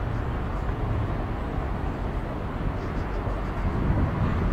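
Low, steady rumble of an approaching Norfolk Southern AC44C6M diesel freight locomotive leading a loaded coal train, growing slightly louder near the end.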